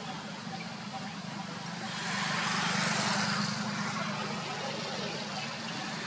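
Background road traffic: a steady low hum of engines, which swells for about two seconds near the middle as a vehicle passes, then eases back.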